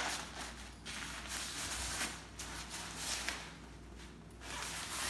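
Nylon carrying bag of a pop-up tent rustling as it is handled and opened, in several stretches with short pauses between.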